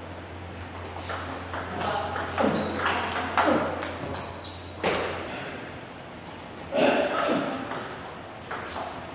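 Table tennis ball being hit back and forth with rubber-faced paddles and bouncing on the table during a rally, a run of quick clicks followed by a few more spaced ones.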